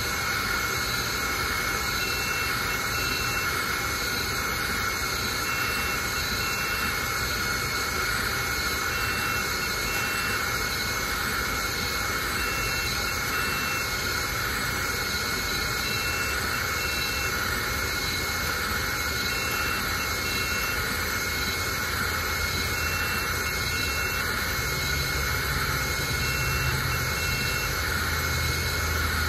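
Ortur Laser Master 3 diode laser engraver running an engraving job: a steady mechanical whir of its fans and motors as the laser head works across the card. A faint short tone recurs in pairs about every three seconds.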